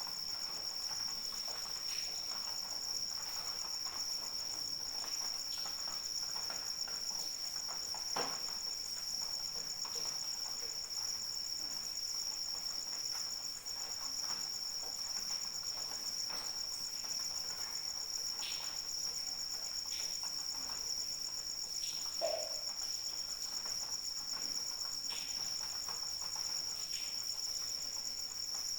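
Crickets trilling steadily, two high unbroken trills layered together, with scattered faint ticks and a brief lower call about two-thirds of the way through.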